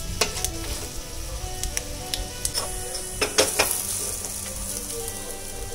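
Peanuts, chana dal and urad dal sizzling in hot oil, stirred with a metal spoon that scrapes and clicks against the pan several times, most sharply around the middle.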